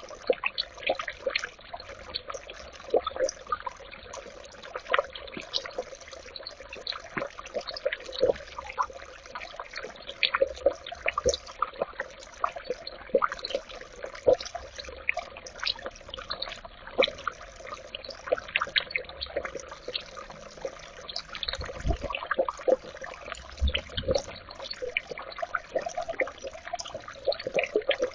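Birdbath fountain water trickling and splashing steadily, with many small irregular drips, and two low thumps in the second half.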